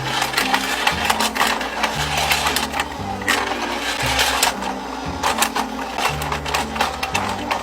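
Background music with a bass line that changes note every half second or so, and a busy run of sharp clicking ticks over it.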